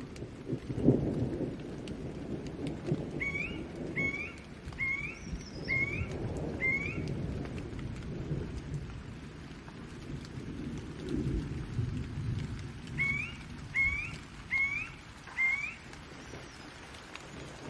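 Rain falling under a low, rolling thunder rumble that swells about a second in and again near the middle. An animal chirps a short rising call five times in a row, then four more times near the end.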